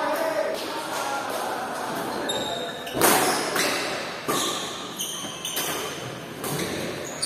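Badminton doubles rally: sharp racket hits on the shuttlecock every half second to a second from about three seconds in, with footfalls and brief shoe squeaks on the wooden court floor, echoing in a large hall.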